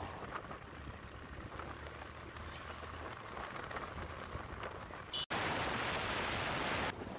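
Ride noise from a two-wheeler on the move: a low engine hum under a steady hiss of wind and road. About five seconds in the sound drops out for an instant, then a loud, even hiss of wind on the microphone comes in for about a second and a half and stops sharply.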